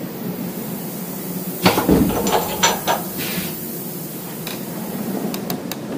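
CNC milling machine's spindle and tool changer handling a tool holder: a loud clunk with a short rush of air about a second and a half in, then several lighter mechanical clicks and knocks over a steady machine hum.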